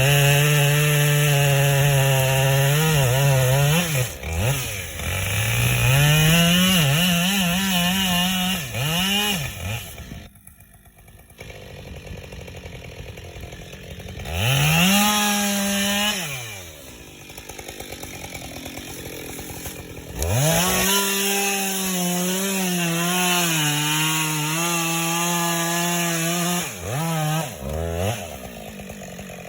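Husqvarna two-stroke chainsaw at full throttle in long runs, its pitch wavering as if under load in wood. It drops to a low idle twice in between, about a third of the way in and again past the middle.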